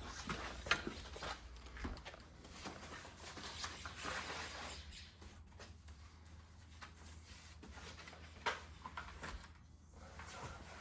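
Scattered light clicks, taps and rustles of a screen track and foam shim being handled and fitted into a door frame, with a sharper click just under a second in and again near the end.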